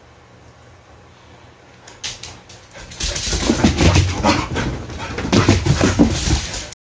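Two dogs playing roughly, vocalising and scuffling, starting suddenly about three seconds in. Before that, only a steady low air-conditioner hum.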